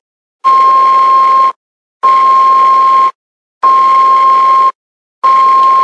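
Airbus A320 cockpit voice recorder test tone: four beeps of about a second each, all at the same steady pitch, one every second and a half or so, with a hiss under each. The tone is the sign that the CVR test has passed.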